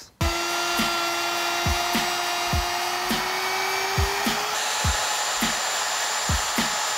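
Porter-Cable plunge router with a dust extractor attached, running as it cuts a groove in a plywood tabletop. Its whine climbs a little in pitch over the first few seconds. Background music with a steady kick-drum beat plays over it.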